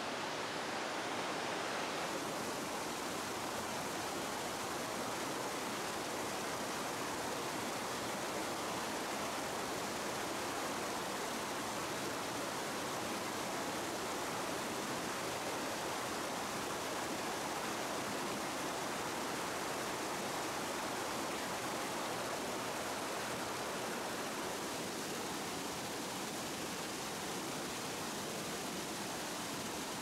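Steady rush of water from a mountain stream tumbling over a waterfall and rapids, an even hiss with no breaks.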